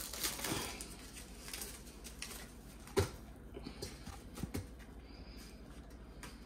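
Faint crinkling and scattered clicks of store-bought meat packages being opened, with a sharper click about three seconds in.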